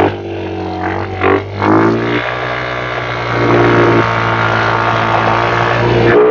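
Kawasaki KFX 50 youth ATV's small engine running steadily, with a brief rise in pitch between one and two seconds in as it is revved, then holding.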